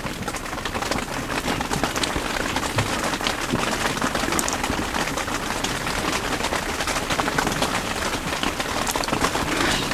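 Rain falling on the fabric of an ice-fishing tent, heard from inside: a steady, dense patter of drops.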